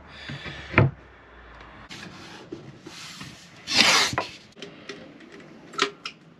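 Masking tape being pulled off the roll and laid along a wooden worktop edge, with a short loud ripping noise about four seconds in. There is a sharp knock about a second in and a click near the end.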